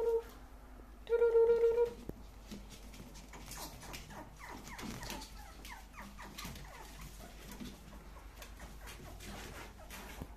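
Pomeranian puppies, about seven weeks old, whining softly in many short falling whimpers, with small scattered ticks. In the first two seconds, two short, steady held tones are louder than the puppies.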